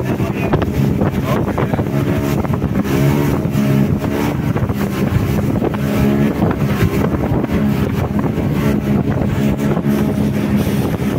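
A passenger boat's motor running steadily underway, its hum wavering slightly in pitch, with wind buffeting the microphone.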